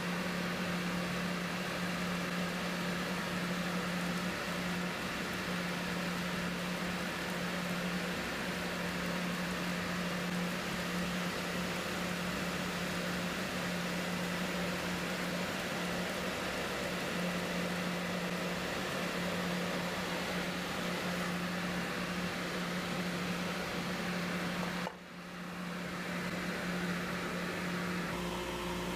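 Shop machinery running steadily, the drill press with its dust collection hooked up: a constant low hum under an even rush of air, dipping briefly near the end.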